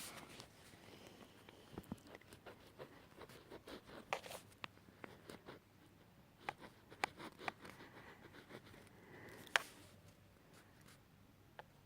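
A pen writing on notebook paper: faint scratchy strokes with scattered small ticks, and one sharper tick late on.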